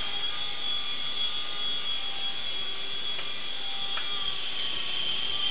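Mini remote-control helicopter's small electric motor and rotors running at a steady high-pitched whine.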